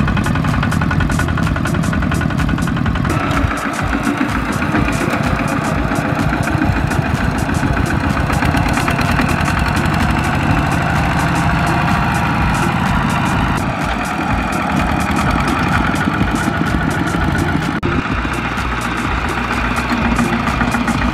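Single-cylinder diesel engines of two-wheel walking tractors running under heavy load, a rapid steady knock of firing strokes, as they drag loaded trailers through deep mud. The sound changes abruptly a few times as one tractor gives way to another.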